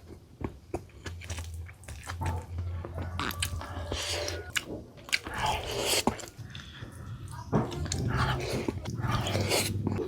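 A person biting and chewing food close to the microphone, with irregular crunches and mouth clicks over a faint steady low hum.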